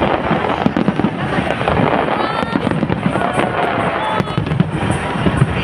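Fireworks display: a dense, continuous stream of rapid pops, bangs and crackles with no let-up.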